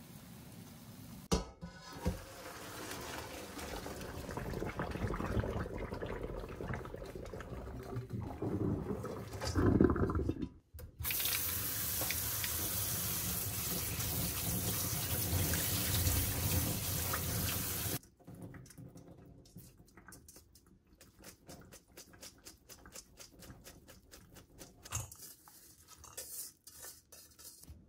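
Water splashing into a stainless steel sink, then a kitchen tap running hard for about seven seconds over blanched soybean sprouts in a mesh strainer, giving them a cold-water rinse, before it cuts off sharply. Afterwards come light clicks and rustles as the drained sprouts are handled and tipped into a bowl.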